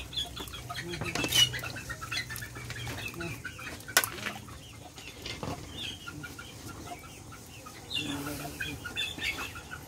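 Chickens clucking in the background, with two sharp knocks of the ladle against the cooking pot about one and a half and four seconds in.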